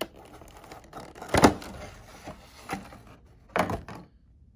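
Rigid clear plastic blister tray of a trading card box being handled: a few hollow plastic knocks and rattles, the loudest about a second and a half in and a short cluster near the end.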